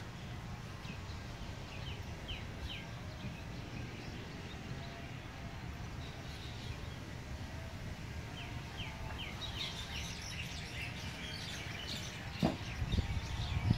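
Small birds chirping in two quick runs of short, high chirps over a steady low rumble, with a single bump near the end.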